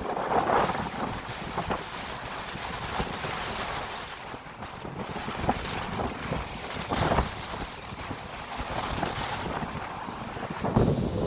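Strong wind buffeting the microphone over breaking sea waves, swelling and dropping in gusts; it grows louder near the end.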